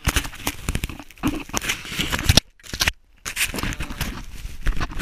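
Close rustling, scraping and clicking of an action camera rubbing and knocking against gloves and ski clothing. The sound cuts out abruptly twice around the middle.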